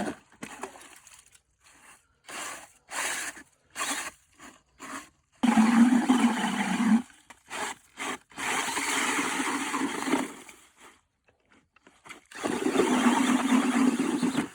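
Ice chisel chopping a hole through lake ice in a series of short strikes, alternating with longer rough scraping as loosened ice and slush are shoveled out of the hole.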